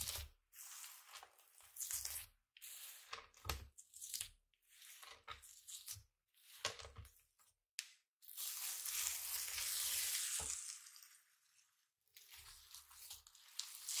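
Yellow slime mixed with kinetic sand being pressed, poked and folded by fingers: crackling, squishy pokes in short bursts about every second and a half, with one longer crackle of about three seconds past the middle.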